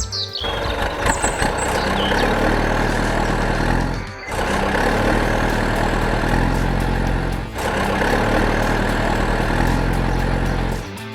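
Construction vehicle engine running steadily, with two brief dips about four and seven and a half seconds in, cutting off just before the end.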